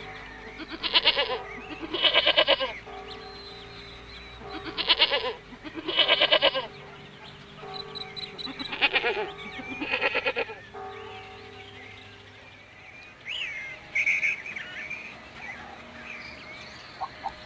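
Goats bleating: six wavering bleats, coming in three pairs over the first ten seconds or so.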